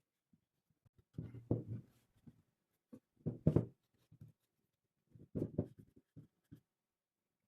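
Hand work on wood: three short bursts of scratching and light knocking, with pauses between.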